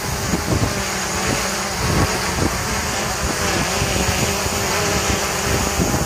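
DJI Mavic Pro quadcopter hovering close overhead, its four propellers giving a steady buzzing hum with a high hiss, while gusts of wind buffet the microphone.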